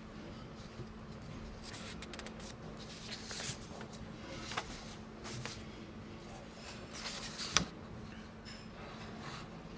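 Quiet hall with scattered small clicks and rustles over a faint steady hum, and one sharp click about three-quarters of the way through.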